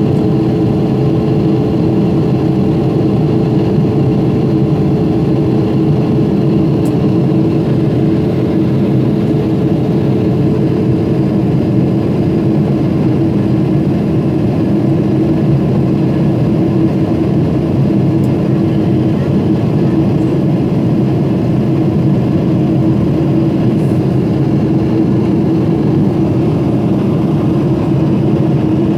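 Steady jet engine and rushing air noise inside an airliner cabin during the climb after takeoff: a loud low drone with a steady hum on top. A second, higher hum fades out about ten seconds in.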